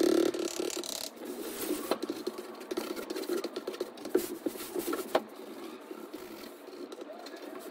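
A drawing stick scraping and rubbing across a large sheet of paper, with the hand smudging the marks. A steady hard rubbing in the first second gives way to quieter, irregular scratchy strokes with a few sharp taps.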